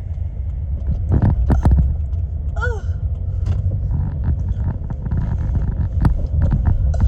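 A woman hiccupping over the steady low rumble of a moving car's cabin: several sharp hiccups come a little over a second in and again about six seconds in.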